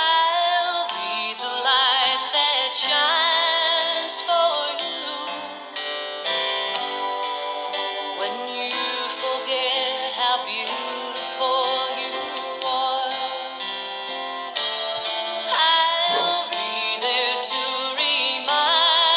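A song: a voice singing with vibrato over guitar and other instrumental accompaniment.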